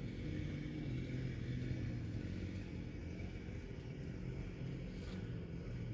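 A steady low rumble without distinct knocks or clicks.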